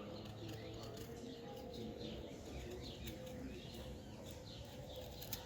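Small birds chirping faintly in the background, many short falling chirps, with two sharp clicks near the end.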